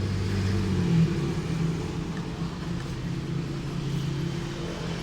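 A motor running with a steady low hum that shifts slightly in pitch about a second in.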